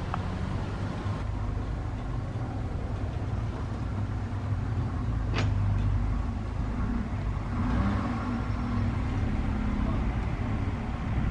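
A motor vehicle engine gives a steady low rumble, with a single sharp click about halfway through.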